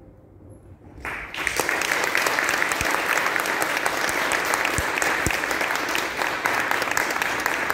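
About a second in, an audience starts applauding, a dense patter of hand claps that carries on steadily.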